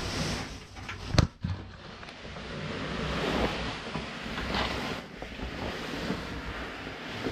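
Breathing close to the microphone and rustling and scraping of a caver's clothing against rock in a tight passage, with one sharp knock about a second in.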